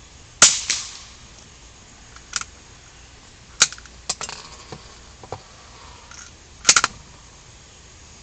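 A firearm shooting test ammunition: three shots fired about three seconds apart, with fainter sharp clicks between them.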